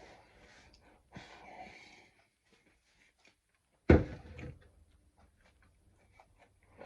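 A person breathing and sniffing between bites, with small clicks and one loud sudden thump about four seconds in.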